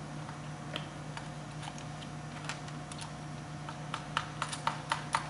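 Light clicks and taps from hands handling a plastic fuel pump assembly and its fittings: a few scattered, then a quick run of about eight near the end. A steady low hum sits underneath.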